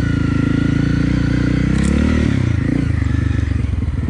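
Honda single-cylinder motorcycle engine running steadily as the bike is ridden, its revs shifting about halfway through.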